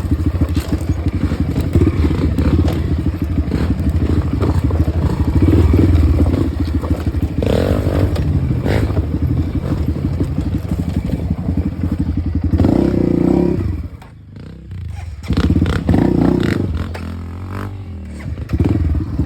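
Off-road dirt bike engine running hard with a rapid, even firing beat, then a few short blips of throttle with a brief lull between them about three-quarters of the way through.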